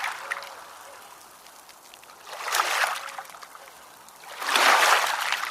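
Small ocean waves washing in: a rush of water swells and fades every two seconds or so, with the last surge the loudest.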